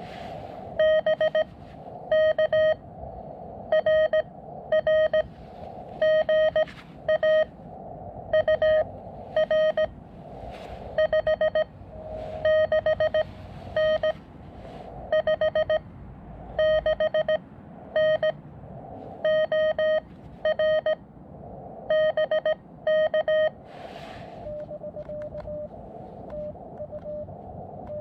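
Morse code (CW) on a portable ham radio transceiver: a steady high beep keyed in dots and dashes over the receiver's hiss. Louder, buzzier keyed passages alternate with fainter ones.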